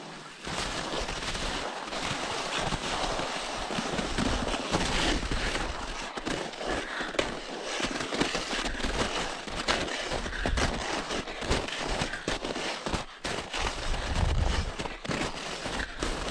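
Wind buffeting the microphone: a rough, uneven rumble with a crackling hiss over it.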